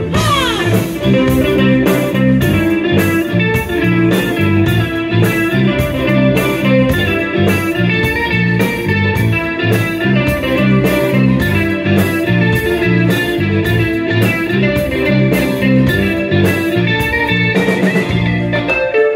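Live band music: an electric guitar plays the lead melody over a drum kit keeping a steady beat, with cymbal hits a couple of times a second.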